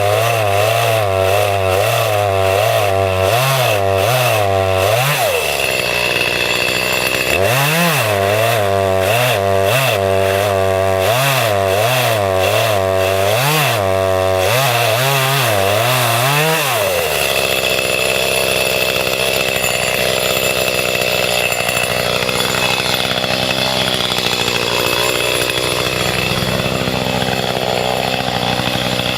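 Chainsaw cutting into a dead pine trunk, its engine pitch rising and falling about once a second as it works the cut. The pattern breaks off briefly about five seconds in, resumes, and from about seventeen seconds on the saw runs more steadily.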